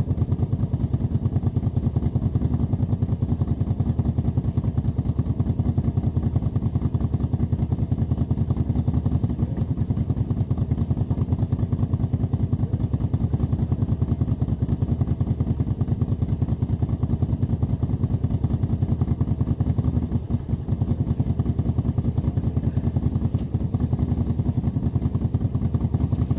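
A four-wheeler (ATV) engine running steadily under load, pulling a deck, with a fast, even engine beat throughout and a brief dip in level about 20 seconds in.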